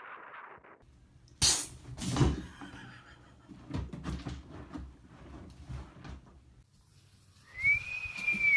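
Two loud bangs about a second apart, then a run of lighter knocks and thumps, like a door or wooden panel being knocked; near the end a rooster starts to crow.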